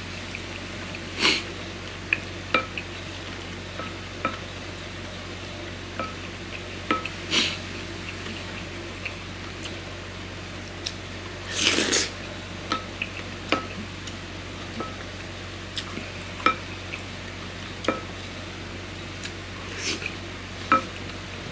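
Wooden spoon clinking and scraping against a ceramic bowl while eating a rice bowl, with a few short slurps from the spoon. A low steady hum runs underneath.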